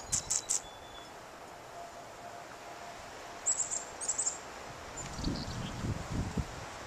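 Outdoor ambience in the snow with a few short, high chirps in two brief clusters, one right at the start and another around three and a half to four seconds in, followed by a run of low, muffled thumps near the end.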